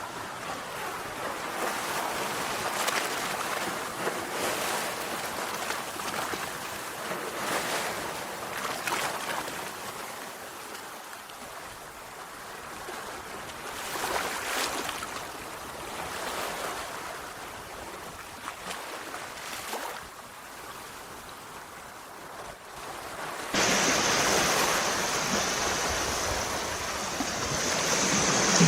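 Sea waves washing onto a shore, each one swelling and falling away every few seconds. About 23 seconds in the sound cuts abruptly to a louder, steadier rush of surf.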